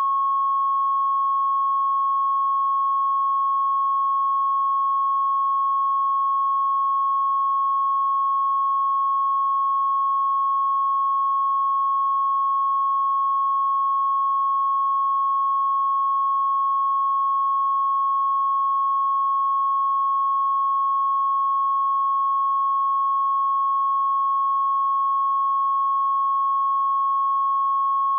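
Censor bleep: a steady pure tone of about 1 kHz, held unchanged.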